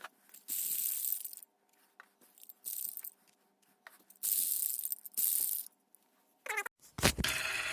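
Hand work with tools on bicycle pedals: several hissing, scraping bursts about a second long with a few light metal clicks between them, then a louder, steadier noise sets in suddenly near the end.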